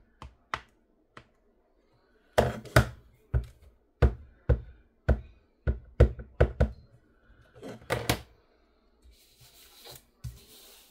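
Sharp knocks in quick succession, about two a second, of a clear stamp on an acrylic block being tapped against an ink pad to ink it. Near the end, paper slides and rustles across the desk.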